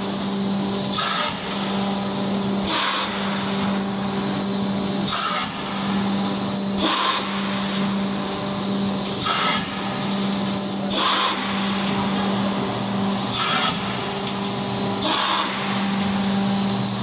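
Automatic pulp egg tray forming machine running: a steady motor hum with short hisses of compressed air about every two seconds, the air blowing the formed trays off the moulds.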